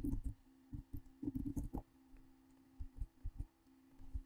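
Computer keyboard being typed on in short irregular runs of key clicks, over a faint steady hum.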